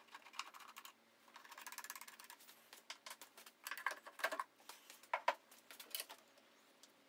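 Faint clicks and knocks of an air box being worked loose and lifted off the twin SU carburettors of a classic Mini Cooper S A-series engine, with a short rattling scrape about a second in.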